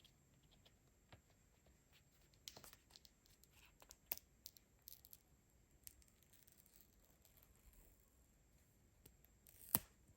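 Faint tearing and rustling of packaging as a phone box is opened: scattered short rustles and light clicks, with one louder sharp tear near the end.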